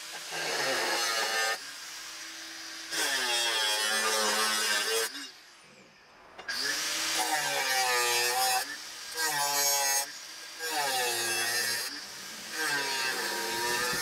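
Angle grinder with a thin cut-off disc cutting steel in a series of short bursts. The motor's pitch sags and recovers as the disc bites into the metal.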